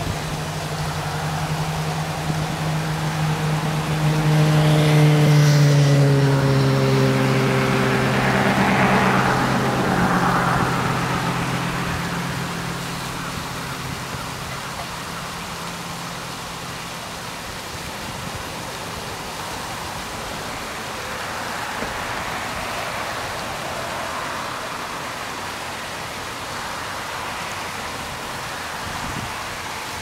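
A motor vehicle drives past, its engine hum dropping slightly in pitch. It is loudest about five seconds in and fades away by about fifteen seconds, over the steady splashing of pond fountains and a rock waterfall.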